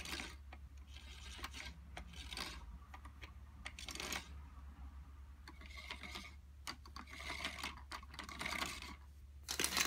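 Faint clicking and rubbing of plastic toy gears as a hand turns the crank of a snap-together gear set, the teeth ticking against each other as they mesh, in uneven spurts.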